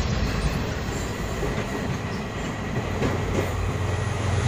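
Moving passenger train: the steady rumble and rattle of the coach and its wheels on the rails, heard from the open doorway, with a couple of faint knocks about three seconds in.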